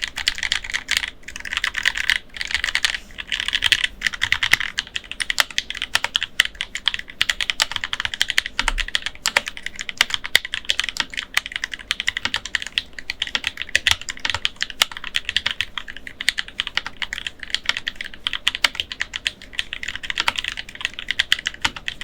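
Fast, continuous typing on a Pulsar PCMK TKL mechanical keyboard with stock pre-lubed switches and stock stabilizers under low-profile PBT double-shot keycaps, a dense stream of keystroke clicks. The sound profile has no hollowness or pinging.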